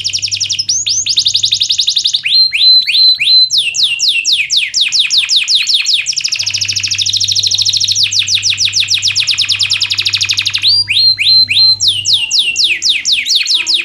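Domestic canary singing a loud, continuous song of fast trills: runs of quick falling notes that change speed and pitch every second or two.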